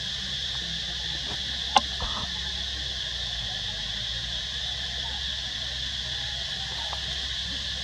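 Steady high-pitched drone of a forest insect chorus, with one sharp click about two seconds in.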